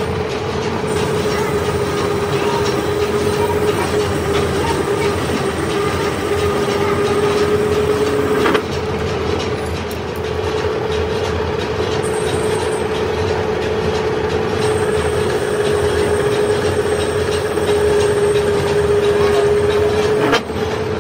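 Metal lathe cutting the flange face of a tractor rear axle half shaft: a steady machining whine over the rough scrape of the cut as metal curls come off. The sound changes abruptly twice, about eight seconds in and near the end.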